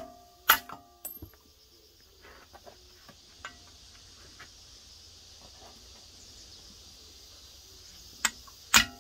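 Hand hammer striking steel on a vise: two ringing metal blows about half a second apart, a lighter tap, then a long pause before two more ringing blows near the end.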